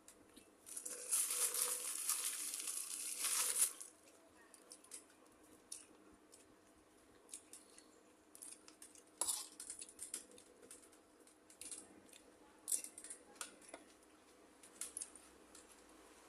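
Crinkling, rustling handling noise for about three seconds near the start, then scattered light clicks and taps while a cucumber som tam meal is being eaten.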